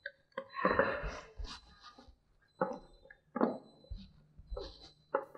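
Spatula stirring and scraping thick choux pastry dough in a glass mixing bowl: a run of stirring about a second in, then a few separate strokes.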